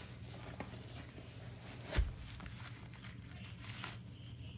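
Light rustling and handling of a Salomon S-Lab XT 5 Softground trail running shoe as it is pulled on and laced by hand, with one dull thump about two seconds in, over a steady low hum.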